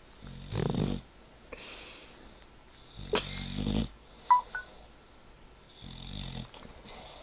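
Bulldog breathing noisily: three loud breaths, each under a second, about two and a half seconds apart.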